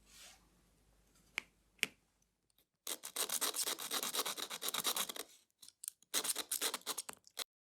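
Rapid back-and-forth rubbing strokes of hand polishing on a watch part, in two runs: a longer one and a shorter one near the end. Two sharp clicks come shortly before the first run.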